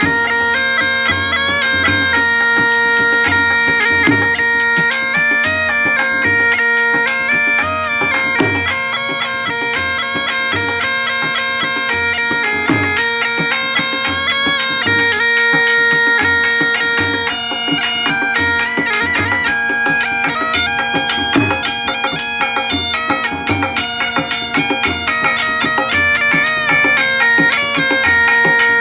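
Been (pungi, the snake charmer's reed pipe) playing a snake-charmer melody over its steady drone, with dhol drum beats underneath.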